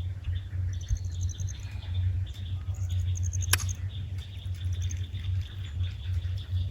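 Birds chirping in quick high trills, twice, over a faint steady insect buzz and a steady low hum, with one sharp click about three and a half seconds in.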